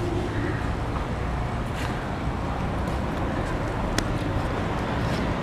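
Steady outdoor traffic noise from nearby road and parking-lot cars, with one sharp click about four seconds in.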